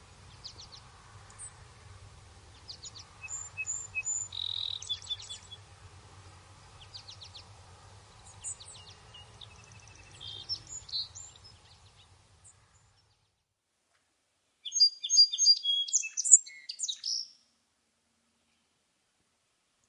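Birdsong: many short high chirps and whistled notes over a faint low hum. The sound stops about twelve seconds in, a louder burst of chirping follows a couple of seconds later, and then it goes silent.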